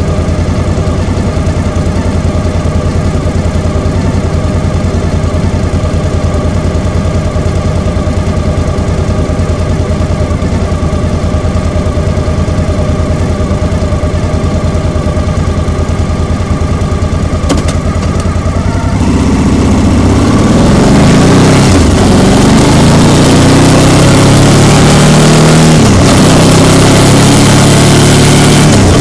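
Motor scooter engines idling at a stop. About two-thirds of the way through, the scooter pulls away: the sound gets louder, the engine note rises in sweeps, and wind rushes over the microphone.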